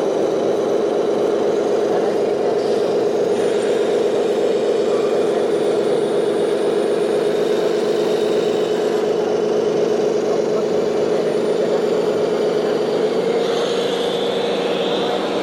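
Small electric motor of a DIY mini RC model vehicle whirring steadily, its pitch stepping up slightly near the end.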